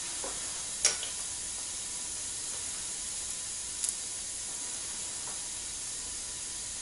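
T-bone steak sizzling on an electric indoor grill plate: a steady hiss, broken by two sharp pops about three seconds apart.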